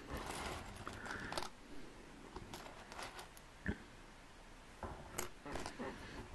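Small plastic LEGO bricks clicking and rustling as they are handled and picked through, with one sharper click a little past the middle.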